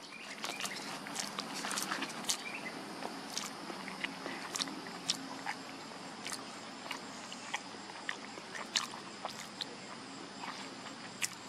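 Osprey eating a fish: irregular sharp clicks and snaps as it tears and crunches the flesh, roughly one or two a second, over a steady background hiss.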